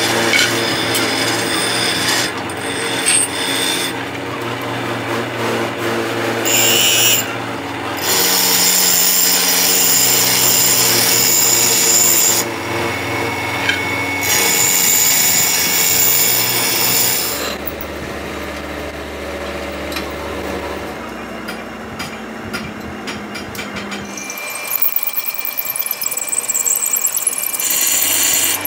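Pillar drill press running and drilling through a stack of steel brake-shoe plates: a steady motor hum under a harsh metal-cutting scrape. The cutting noise comes and goes in several stretches, with a faster rattle near the end.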